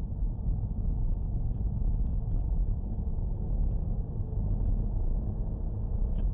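Steady low rumble of a car driving at about 55–60 km/h, heard from inside the cabin through a dashcam microphone: road and engine noise.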